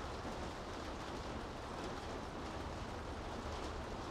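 Rain falling on city streets: a steady, even hiss with faint scattered drop ticks over a low rumble.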